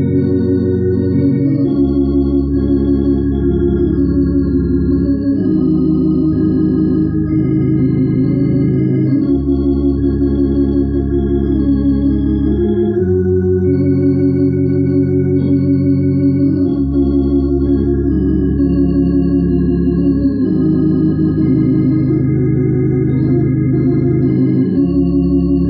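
Hammond organ playing a gospel song in held chords over low sustained bass notes. The chords change every one to three seconds.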